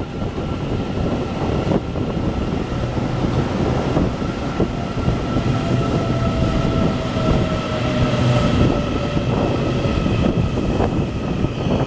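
Taiwan Railway EMU800 electric multiple unit pulling away and receding, wheels clicking over rail joints and points, with a steady high whine running through it.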